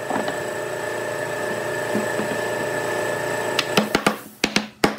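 Wooden mallet knocking a joint of a wooden chair frame home: a quick series of sharp knocks in the last second and a half, over a steady background hum.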